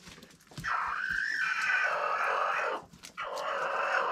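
Chickens making two long, harsh, growling calls, the "dinosaur noises" chickens make; the second begins about three seconds in.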